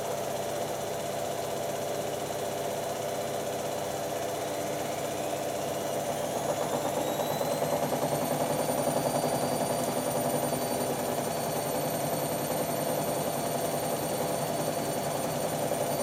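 Hotpoint WD440P and Hoover Nextra washer dryers running their spin cycles together. About four seconds in, a motor whine rises in pitch for a few seconds and then holds steady as a drum speeds up, and the machines' hum grows louder.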